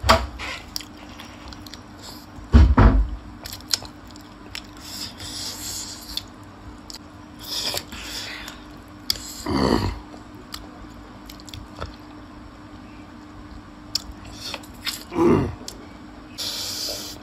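Close-miked eating: chewing and biting with crunches and many small clicks, as chicken feet in gravy and crisp pani puri are eaten. There are louder short bursts about 3, 10 and 15 seconds in, over a faint steady hum.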